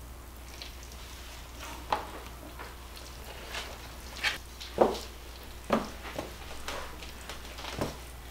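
Wooden spoon stirring a wet cornbread dressing mixture in a large bowl: soft squelching broken by about half a dozen irregular knocks and scrapes of the spoon against the bowl, over a faint steady hum.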